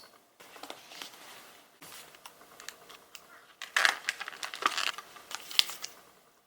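Rustling and crinkling handling noise with many sharp little clicks, in short stretches that start and stop abruptly.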